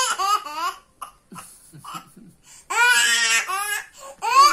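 A toddler girl's high-pitched laughing squeals, in three bursts: one at the start, a longer one about three seconds in, and a short one near the end.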